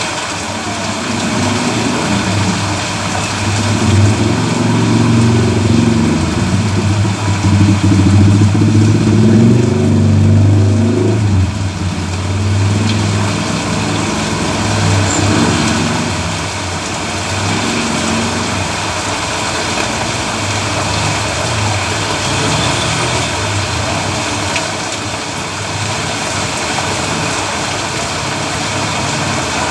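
Steady rain hiss on a road, with a motor vehicle's engine passing close by: it is loudest in the first twelve seconds or so, then fades away about halfway through, leaving the rain.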